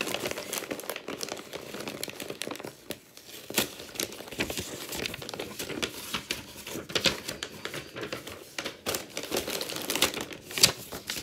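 Packaging crinkling and rustling as hands rummage through a snack box, handling a printed card insert and plastic snack bags, with irregular crackles and a few sharper rustles.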